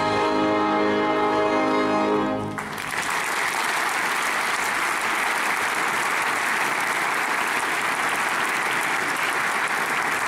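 An orchestra holds a final chord that cuts off about two and a half seconds in, followed by steady audience applause.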